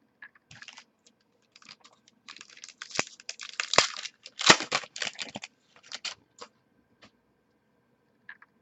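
Trading cards being handled: a run of quick clicks and short rustles, busiest in the middle, then thinning out.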